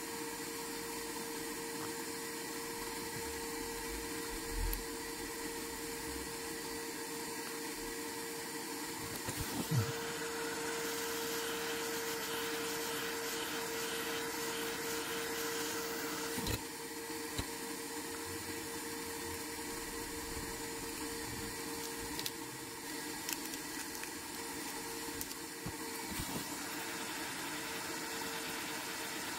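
Hot air rework gun blowing steadily, a hiss of air with a constant fan whine, as it heats a cracked phone screen to soften the adhesive beneath. A few small knocks break in, the clearest about ten seconds in.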